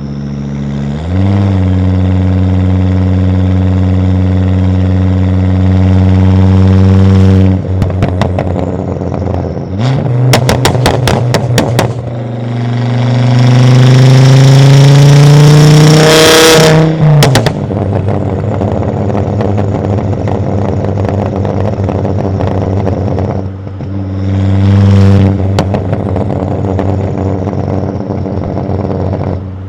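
Volvo S60 2.5T turbocharged five-cylinder engine through a catless exhaust, revving: it holds at raised revs, drops off with a string of crackling pops, climbs in a longer rising rev, falls off again with more pops, then settles back near idle with one short blip near the end.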